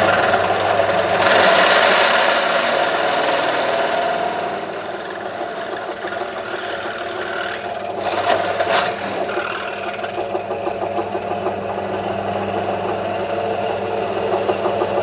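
Bench drill press running at about 1280 rpm with a 10 mm twist drill cutting into a block of aluminium: a steady motor hum under the noise of the cut, which swells and eases a little as the feed goes on.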